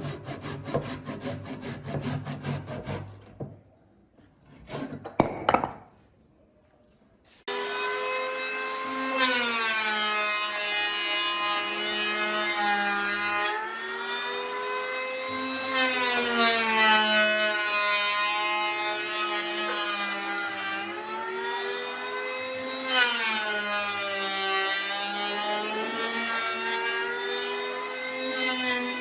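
Wood being worked with quick, even scraping strokes for a few seconds. Then, about seven seconds in, a power tool's motor starts and runs steadily, its pitch sagging and recovering several times.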